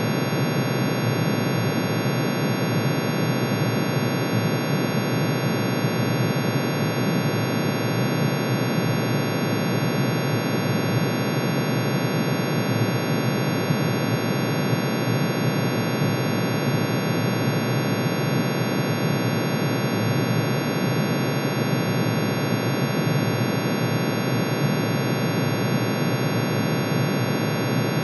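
A dense, unchanging drone of many sine tones sounding together, the synthesized chord of iron's atomic emission spectrum with each spectral line turned into an audible sine wave. It hums like a thick, steady noise with no rhythm or change.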